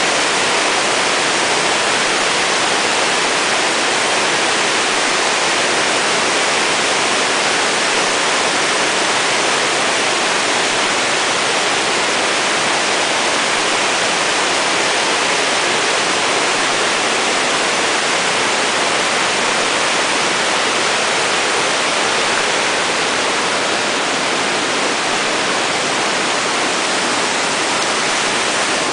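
Flowing creek water rushing steadily: an even, unbroken hiss.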